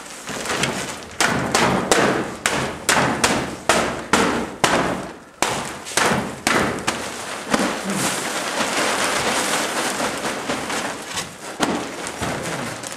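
An American Bully puppy jumping up against a wooden pen wall, its paws knocking on the boards about twice a second. About seven seconds in, the knocks give way to steadier scratching and rustling.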